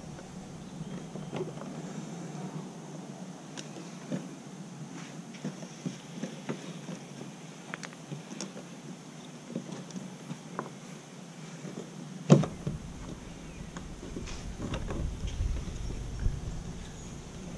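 Scattered light clicks and knocks from hands working a fuel pump module into its fuel tank opening, with one sharp, much louder knock about twelve seconds in.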